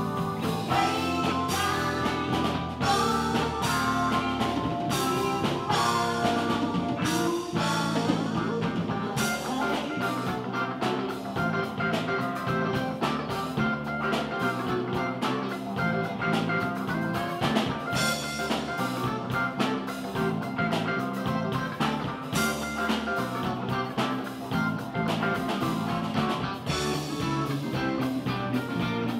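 Live funk band playing an instrumental passage: bass guitar, drum kit and keyboards over a steady beat.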